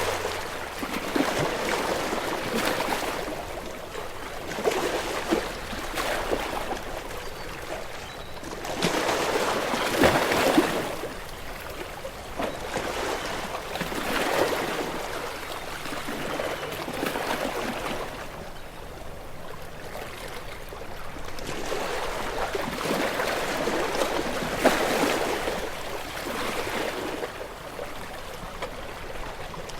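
Small waves breaking gently on a beach and washing up the shore, each wash swelling and fading over a few seconds, with a strong surge about ten seconds in.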